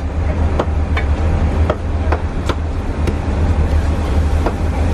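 Chinese cleaver chopping on a thick wooden chopping block: about six sharp knocks at uneven intervals, over a steady low hum.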